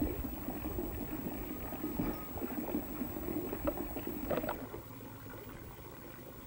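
Water pouring steadily from a pipe spout into a stone trough, splashing, with a few faint knocks; it drops away about four and a half seconds in.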